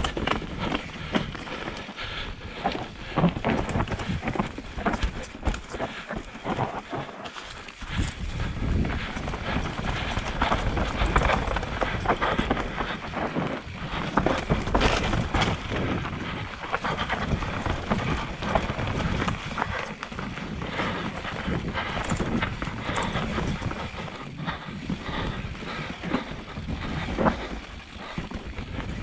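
Mountain bike riding fast down a dirt forest trail: tyres rolling over dirt, roots and ruts, with constant irregular clattering and knocks from the bike over the bumps.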